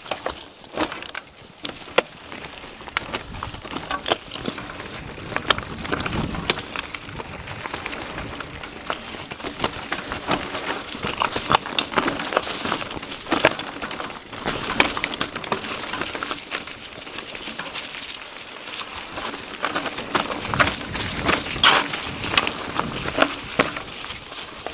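Mountain bike riding down a rocky, gravelly trail: tyres crunching over loose stones, with the bike rattling and a constant stream of sharp clicks and knocks from rocks.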